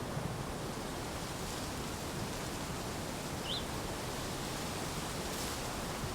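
Steady outdoor wind noise with no let-up, and one short high rising chirp about three and a half seconds in.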